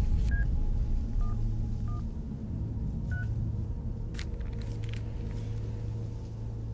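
Mobile phone keypad beeping as a number is dialled: four short beeps at different pitches over the first few seconds. A steady low rumble runs underneath, and there is a single click about four seconds in.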